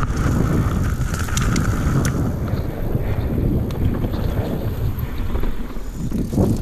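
Wind buffeting the microphone and tyres rumbling over a dirt trail as a Yeti SB150 mountain bike descends at speed, with short rattles and clicks from the bike over bumps. A steady higher buzz runs through the first two seconds, and a brief louder rush comes near the end.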